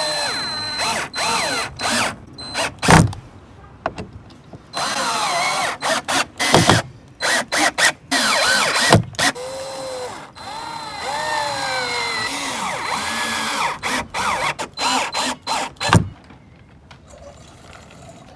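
Power drill running in repeated stop-start bursts, its motor whine sweeping up and down in pitch as it spins up and slows; it stops about 16 seconds in.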